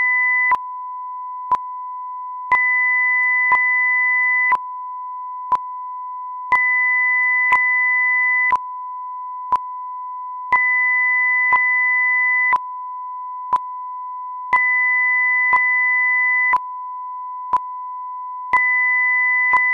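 Generated audio-video sync test signal: a steady pure tone, a second tone an octave higher switching on for two seconds and off for two, and a short click once every second as a sync pip to line up with the picture.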